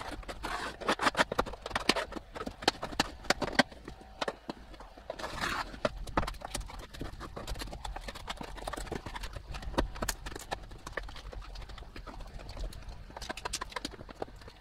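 Irregular clicks, knocks and snaps of wall trim being pried off inside an RV shower stall, with a short scrape about five seconds in.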